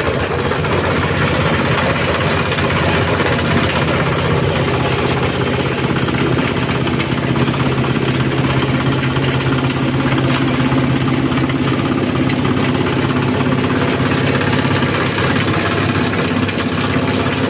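Engine-driven multifunction chopping and grinding machine running steadily at an even speed, with no pause or change.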